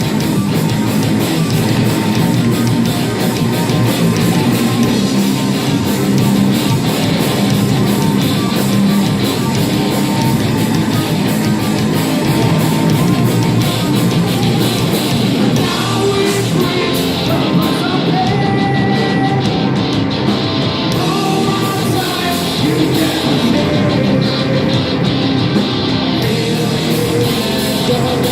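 Heavy metal band playing live: distorted electric guitars, bass and drums with crashing cymbals. About halfway through, a melody line comes in over the band and the cymbals drop out for stretches.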